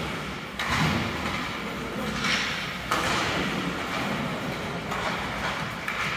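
Hockey arena game noise: a steady wash of rink and crowd sound with two sharp knocks, about half a second and three seconds in.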